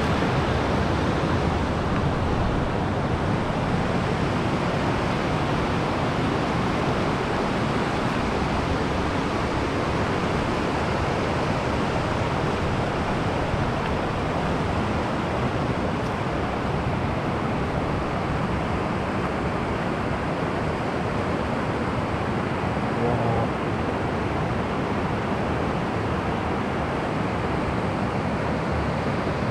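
Steady rush of spring water pouring over rapids in a fast, full stream, a constant churning with no breaks.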